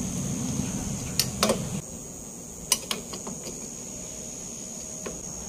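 Brake shoes and their metal hardware clicking and tapping as they are fitted by hand onto a car's rear drum-brake backing plate: a handful of short, sharp clicks spread through, over a low hum that stops about two seconds in.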